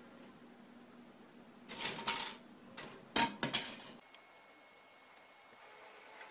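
Clicking and clattering around a DVD player with its disc tray out as a cat paws at it: a rattly burst about two seconds in, then a few sharp clicks.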